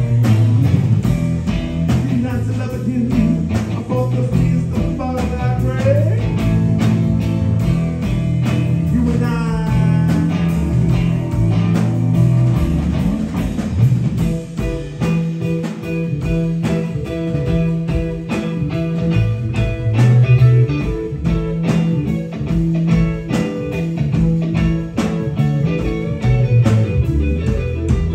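A live blues-rock band playing: electric guitar over bass guitar and a drum kit, with lead notes bending up and down in pitch in the first half.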